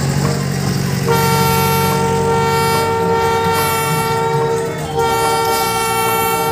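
Train-style horn of an odong-odong tourist train sounding a long held blast from about a second in, which changes pitch just before five seconds and keeps sounding. Before the horn starts, the vehicle's engine is heard as a low hum.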